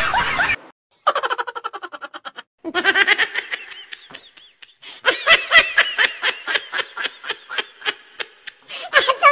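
Laughter in quick repeated bursts, high-pitched, starting about a second in and running in stretches with short breaks.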